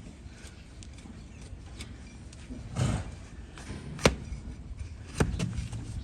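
Trimming tools cutting into a donkey's hoof: a short scraping cut about three seconds in, then a sharp knock about a second later, the loudest, and another a second after that.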